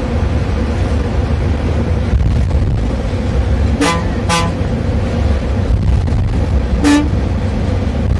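Bus engine running steadily under the cabin floor, with the horn given short toots: two quick ones close together a little after the middle, and one more near the end.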